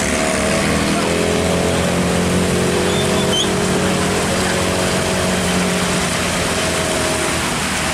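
Road traffic on a wet road: a heavy vehicle's engine drones steadily over the hiss of tyres on the wet surface.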